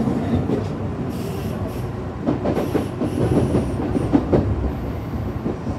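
Kintetsu electric train running over a series of points and crossovers, heard from inside the front car: a steady wheel-and-rail rumble with irregular clacks as the wheels cross the switch frogs. High wheel squeals come in short spells, about a second in, in the middle and near the end.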